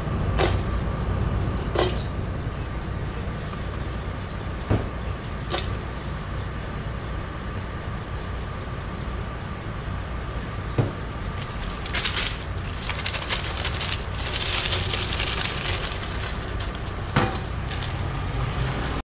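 Fried fish strips being seasoned and tossed in a stainless steel bowl: a few sharp metal clinks, then a dry rustling hiss through the second half, over a steady low kitchen rumble.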